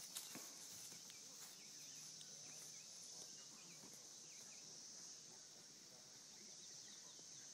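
Faint, steady high-pitched drone of insects in the grass, with a few soft clicks near the start.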